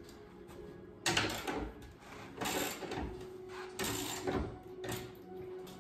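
Metal TV wall-mount bracket being handled against the wall, rattling and scraping in several short clattering bursts about a second apart.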